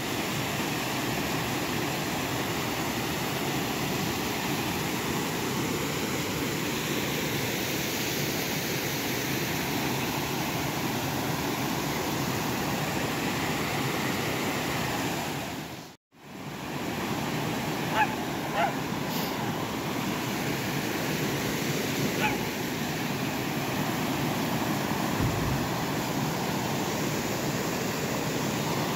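Steady rushing wind noise on the microphone, broken by a sudden drop to silence about halfway through, with a few faint clicks soon after.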